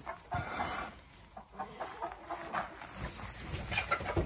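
Flock of backyard hens clucking, with short scattered calls that grow busier near the end.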